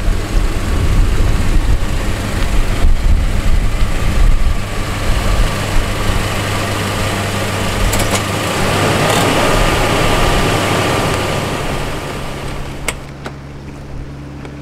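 Toyota Hilux Surf's engine idling under loud, gusting wind noise on the microphone. About twelve seconds in the wind drops away, leaving the steady idle hum, and two sharp clicks follow.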